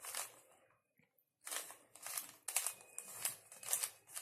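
Rubik's cube layers being turned by hand through an algorithm: a quick series of plastic clicks and rattles, with a pause of about a second early on before the turns resume about every third of a second.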